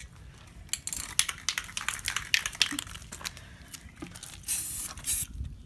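Aerosol spray paint cans in use for hydro dipping: clicks and rattles of handling, then short hissing sprays of paint onto the water, the longest about four and a half seconds in.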